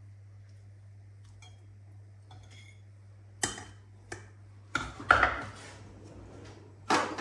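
Steel meat fork clinking against a porcelain plate and a stainless steel pot as pork chops are lifted into the sauce. A couple of light ticks come first, then a run of louder clatters in the second half, over a faint low hum.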